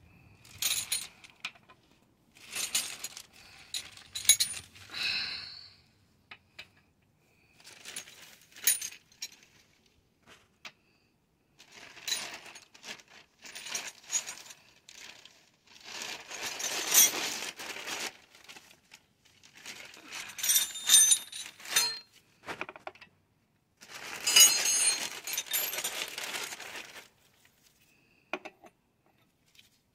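Metal tools clinking and rattling as they are handled, in irregular bursts with short pauses, the longest and loudest in the second half.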